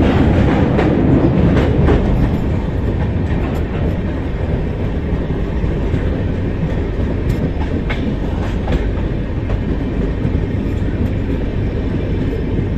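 Passenger train coach running at speed, heard from its open door: a steady rumble of wheels on rail with rushing air and the clickety-clack of rail joints. It is louder for the first few seconds while still on the steel girder bridge, then settles into an even run with occasional sharp clicks.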